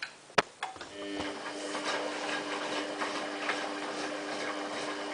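Samsung WF8804RPA front-loading washing machine in its service cycle: two sharp clicks, then a steady electric hum of a motor or pump starting up about a second in and running evenly while the machine heats its water.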